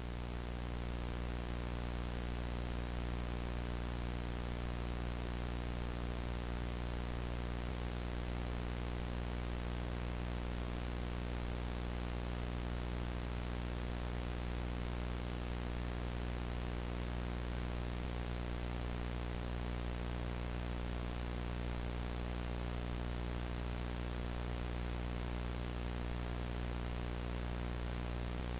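VHS static: steady analog tape hiss over a low electrical hum with its overtones, unchanging throughout.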